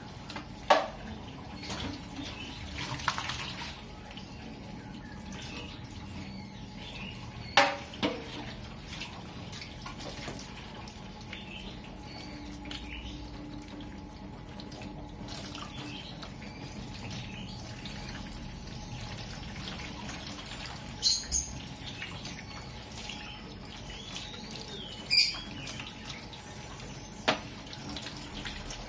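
Water from a tap and hose running over a wet cat and into a stainless steel sink during a bath, with a few sharp knocks and splashes scattered through it.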